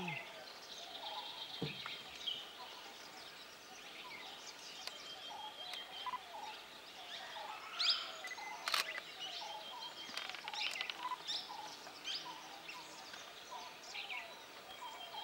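Wild birds chirping and calling: many short high chirps and sliding notes over a steady background hiss, with a sharp click about nine seconds in.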